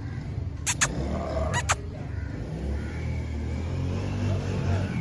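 A motor vehicle's engine running, growing steadily louder, with two quick pairs of sharp clicks in the first two seconds.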